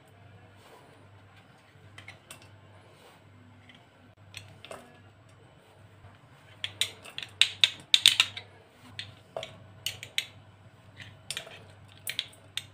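A spoon scraping and tapping against a stainless steel pot as chunks of hard, fridge-cold coconut oil are dropped in. It makes scattered sharp clicks and clinks, sparse at first and thickest a little past the middle.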